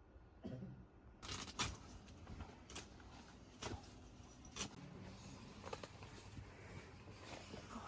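A series of light knocks and clicks at uneven intervals, a second or so apart, with faint rustling between them, like objects being handled.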